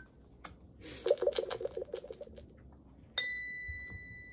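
Electronic lie detector toy game's sound effects: a quick run of ticking beeps while it judges the answer, then a single bright chime that rings on, signalling a truthful answer.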